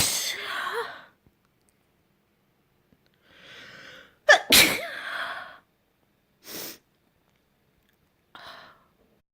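A person sneezing wet, spraying sneezes: the tail of one sneeze at the start, then a sharp in-breath and a second loud, sudden sneeze about four seconds in. Two short breath sounds follow.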